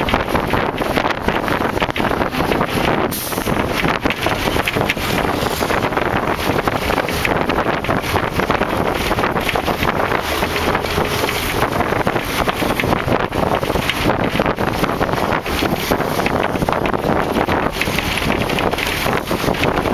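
Wind rushing over the microphone, mixed with the steady running noise of the vehicle it rides in, at a loud and even level.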